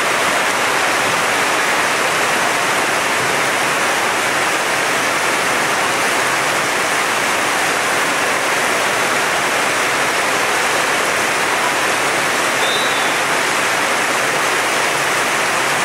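Torrential downpour: heavy rain pouring onto the ground and roof in a steady, loud hiss, with one short high note about thirteen seconds in.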